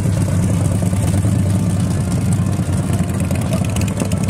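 Several large motorcycles running slowly together as a group, with a steady low engine drone.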